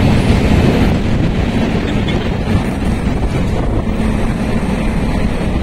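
Passenger express train coaches rolling past at speed: a loud, steady running noise of wheels on the track that eases slightly after about a second as the train moves away.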